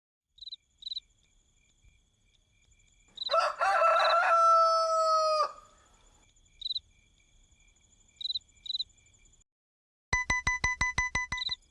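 A cartoon rooster crowing once, about two seconds long, over short bird chirps and a faint steady high tone. Near the end comes a fast ringing of about nine even pulses a second.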